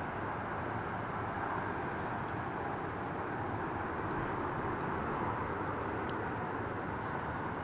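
Steady, even rumble of distant traffic.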